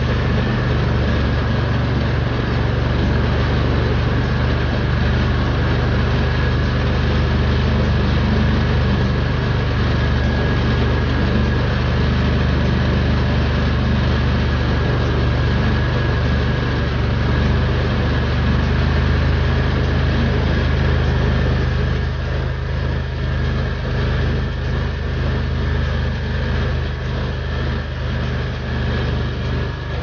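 Argo amphibious ATV's engine running steadily at an even speed, with a thin steady whine above the engine note. About two-thirds of the way through it becomes a little lower and less even.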